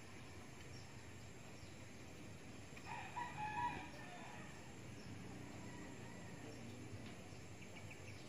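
A rooster crows once, about three seconds in, over a steady low background hiss.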